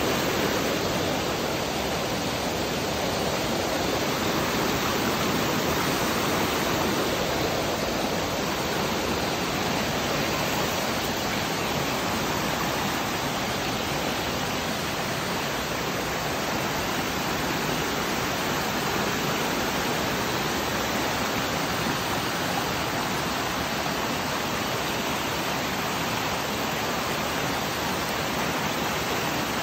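Shallow stream rushing steadily over rock slabs and small cascades, a constant even wash of water noise.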